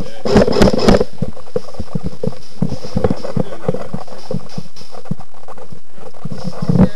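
Irregular footsteps and knocks of gear and handling noise on a gun-mounted camera as the player moves, with a louder cluster of knocking and rustling about half a second in and another knock near the end.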